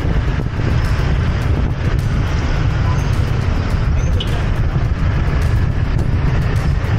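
Steady, heavy wind rumble on a small action camera's microphone during a motorcycle ride, with road and traffic noise under it.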